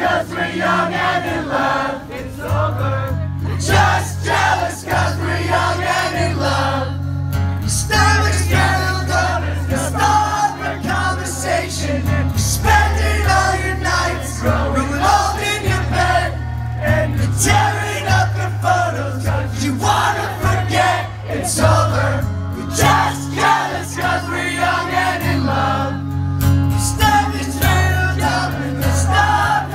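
Live acoustic guitar played through a PA, with singing and many voices from the crowd singing along.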